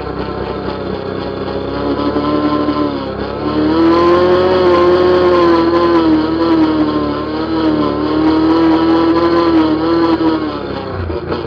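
ATV engine running under way. It picks up speed about three and a half seconds in, holds a steady higher pitch with small wavers, then eases off near the end.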